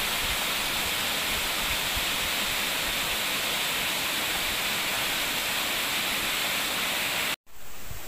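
Small waterfall cascading over boulders into a rocky stream: a steady rush of falling water. It cuts off abruptly near the end, and a fainter rushing follows.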